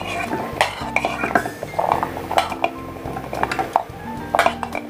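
Metal spoon scraping and clinking against a plate as chopped shallots and garlic are pushed off it into a food chopper's bowl, the pieces dropping in with light, irregular knocks.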